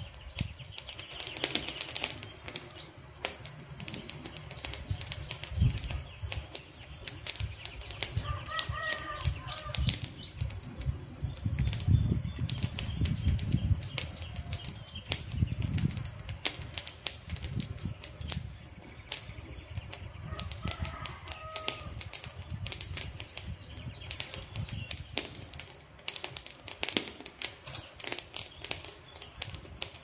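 Wood campfire crackling, with many sharp irregular snaps and pops over a low, uneven rumble of flame.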